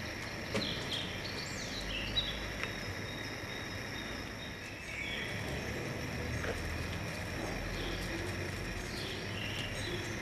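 Outdoor ambience: a steady high hiss with scattered short bird chirps, most of them in the first couple of seconds and again near the end, and a few faint clicks.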